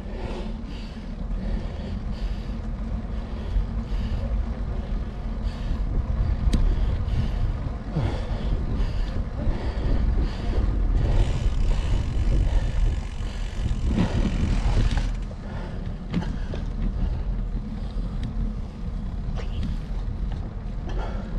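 Wind buffeting the microphone of a camera on a moving bicycle, a steady low rumble with road noise underneath, louder for several seconds in the middle.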